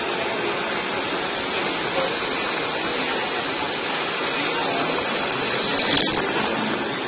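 Shop drilling machine running, its drill bit cutting a hole in a metal 1-2-3 block: a steady rushing noise, with a short sharp sound about six seconds in.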